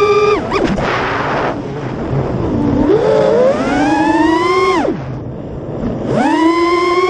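FPV freestyle quadcopter's brushless motors and propellers whining. The pitch climbs as the throttle is pushed and falls sharply when it is chopped, twice: just after the start and near five seconds. A rush of air noise comes around a second in, and the throttle is punched up again about six seconds in.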